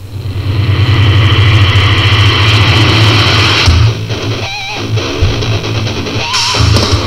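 Intro music: loud heavy-metal-style rock with distorted electric guitar and heavy bass.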